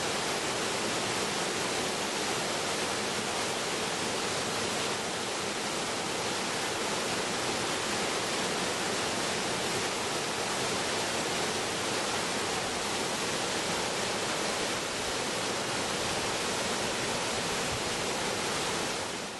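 Waterfall plunging into a rock pool: a steady rush of falling water that cuts off suddenly at the very end.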